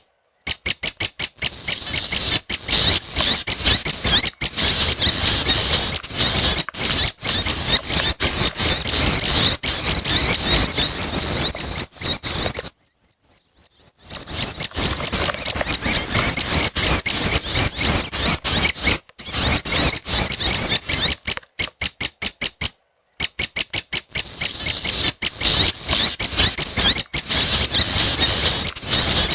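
Juvenile prenjak kepala merah calling: a dense run of fast, repeated, high squeaky notes. There is a short pause about 13 seconds in and another about 22 seconds in.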